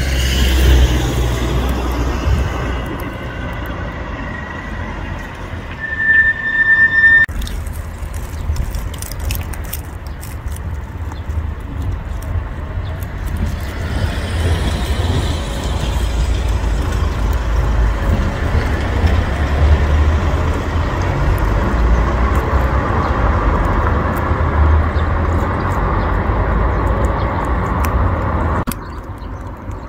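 Outdoor background noise with low rumbling wind on the microphone that rises and falls. A brief, steady high-pitched squeal comes about six seconds in, and the noise drops off suddenly near the end.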